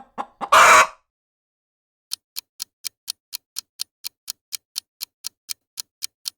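A brief loud burst of sound in the first second. Then, from about two seconds in, a clock ticking at about four ticks a second: a countdown timer for guessing.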